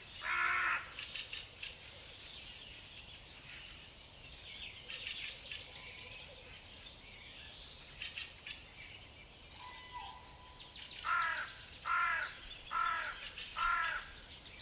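Birds calling outdoors: small birds chirping and trilling high throughout, while a larger bird gives loud harsh calls, once at the very start and four times in a row, evenly spaced, near the end.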